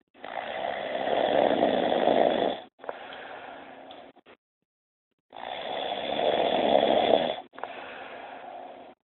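A person snoring: two snores about five seconds apart, each a loud rasping stretch that swells over about two and a half seconds, followed by a quieter breath of about a second and a half.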